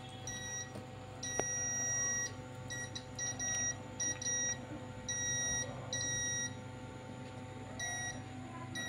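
Digital multimeter's continuity buzzer beeping about ten times in irregular short and longer beeps, the longest about a second, as the probes are touched to points on the LED TV's panel board. The beeps signal that a short circuit is still present on the board.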